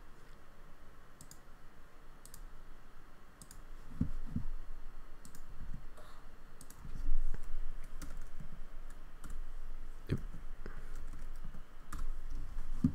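Computer mouse clicks and keyboard taps, scattered and irregular, while menus are picked and tracks renamed. A few low thumps come between them.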